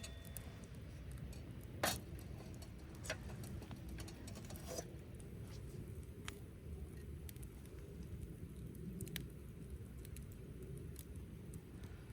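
A low steady rumble with scattered soft clicks and taps, a second or two apart, the loudest about two seconds in.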